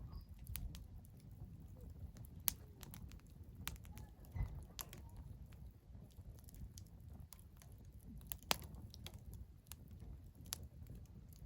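Wood fire crackling: irregular sharp pops and snaps over a low, steady rumble, with a louder snap about two and a half seconds in and another past eight seconds.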